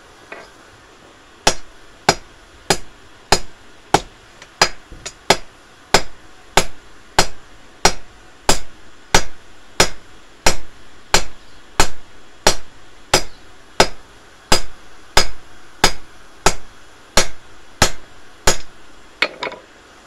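Blacksmith's hand hammer striking a red-hot steel bar on an anvil while forging a tent peg. The blows are steady, about one and a half a second, and each rings briefly. There are about two dozen blows, then a couple of lighter taps before the hammering stops near the end.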